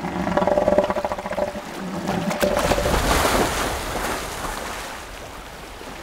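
A southern elephant seal bull gives a low, pulsing call for about two seconds. Then surf washes and splashes around it, fading towards the end.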